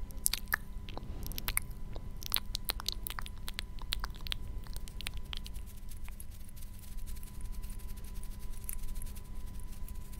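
Close-microphone ASMR trigger sounds: quick irregular clicks and crackles, thickest in the first half, then a run of fine rapid clicks. Under them runs a steady electrical hum from a failing Rode microphone.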